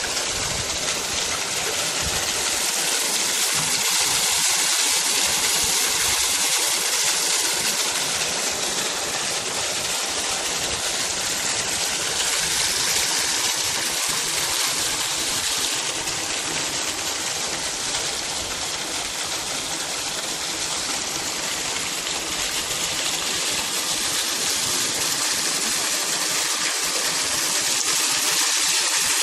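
Steady hiss of running water at a soil-biotechnology sewage treatment plant, an even high rushing sound with little low end.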